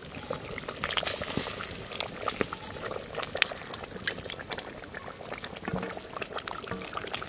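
A pot of fish curry bubbling as pieces of snakehead murrel fish are slid off a steel plate into it, with many small pops and plops over a steady simmering hiss.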